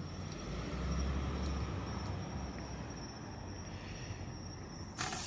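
Single-burner propane camp stove running with a steady low hiss and rumble under a pan of hot frying oil. About five seconds in, a sudden loud sizzle as a piece of breaded fish goes into the oil.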